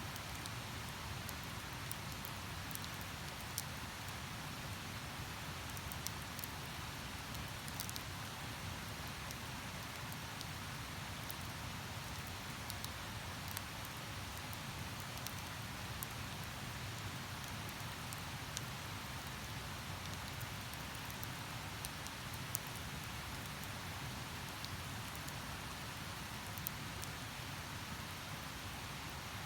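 River water flowing with a steady rush, with a few faint, sharp crackles from the campfire scattered through it.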